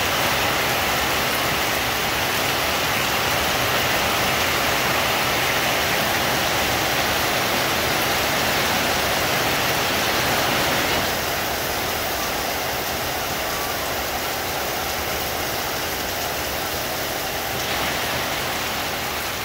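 Heavy rain pouring down steadily on leaves and a roof, with water streaming off the eaves. It gets a little quieter about eleven seconds in.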